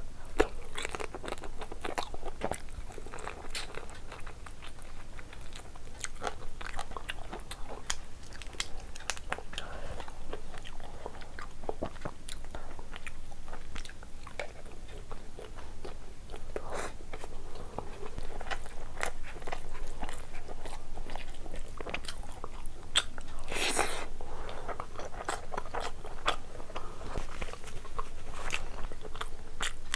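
Close-miked eating: biting into and chewing curried lobster meat, with many small wet clicks and scattered crunches. A louder crunch comes about two-thirds of the way through.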